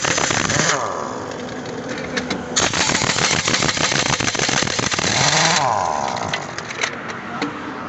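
Pneumatic impact wrench hammering a heavy truck's wheel nut loose in two bursts: a short one at the start and a longer one of about three seconds beginning about two and a half seconds in. A few separate clicks follow near the end.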